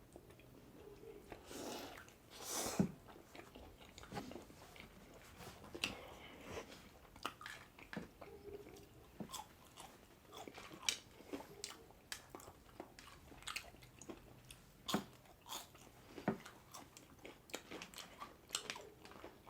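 Close-miked chewing and biting of food, a pulled pork sandwich and crispy fries, with many short crunches and mouth clicks scattered throughout and a louder bite about three seconds in.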